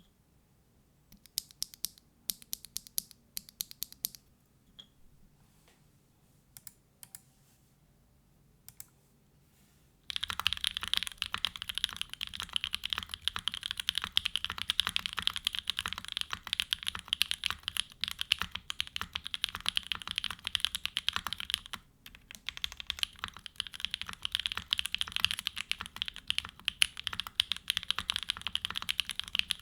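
Custom Mode Tempo mechanical keyboard with a carbon fibre plate, hand-lubed Gateron Pure Berry switches and GMK Tako keycaps, being typed on. There are a few scattered keystrokes and short bursts at first, then fast continuous typing from about ten seconds in, broken by a brief pause about two-thirds of the way through.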